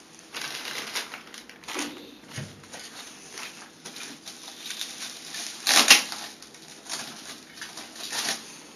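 Plastic wrapping crinkling and rustling as the monitor stand's parts are pulled out of their bag by hand, in irregular bursts, the loudest about six seconds in.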